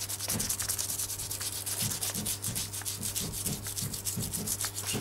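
Scraping and rubbing at the singed, charred hide of a beef head, in quick, even strokes, several a second, as the burnt layer is worked off down to clean skin.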